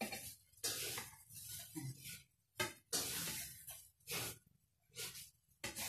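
Kitchen knife slicing soft fruit on a plate: a series of irregular short cutting and scraping strokes as the blade goes through the flesh and meets the plate.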